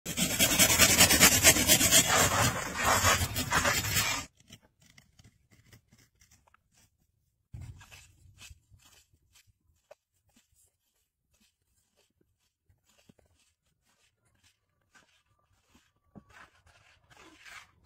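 Hand pruning saw cutting through a small tree trunk in rapid back-and-forth strokes, stopping abruptly about four seconds in. After that come faint scrapes and small ticks of a knife paring the cut stump, with a slightly louder scraping spell near the end.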